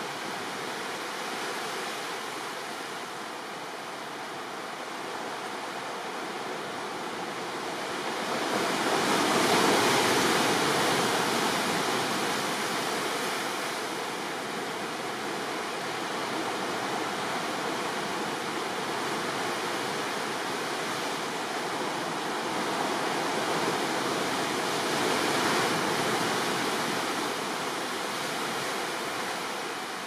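Sea surf washing over rocks along the shore: a continuous rush of breaking waves that swells louder about ten seconds in and again later on.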